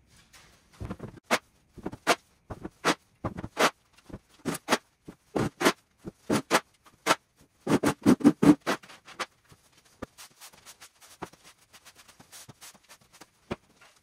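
Flat shovel scraping across a concrete floor, scooping sawdust and wood shavings, with knocks as the loads are dumped into a plastic wheeled bin. After about ten seconds it gives way to fainter, quicker brushing and ticks of a broom sweeping up the last shavings.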